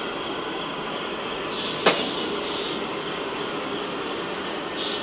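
Steady mechanical drone of machinery, with a single sharp click about two seconds in.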